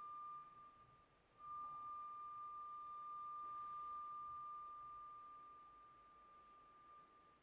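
A single high, pure pipe-organ note on a flute-like stop, quiet. It breaks off for about a second near the start, sounds again at the same pitch and is held, then slowly fades away.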